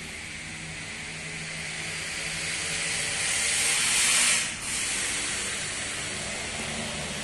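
Steady hiss of water spraying from the farm's irrigation line, swelling to its loudest about four seconds in, cutting out for an instant, then going on a little quieter.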